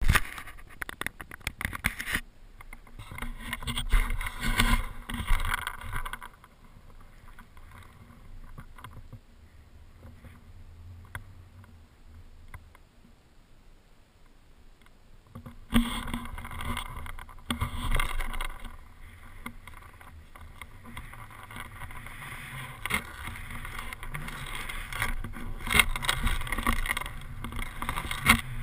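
Skis sliding through deep powder snow: a loud rushing noise with wind on the microphone and occasional knocks. It drops to a low hush for about ten seconds in the middle while the skier stands still, then picks up again.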